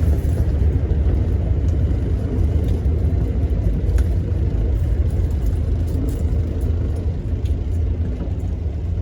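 Car running on the road, heard from inside the cabin: a steady low rumble of engine and road noise.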